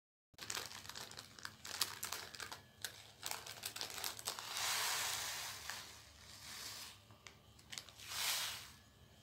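Plastic packet of small seed beads being handled and crinkled, with many sharp clicks and rustles. There are two longer rustles, one about halfway and one near the end.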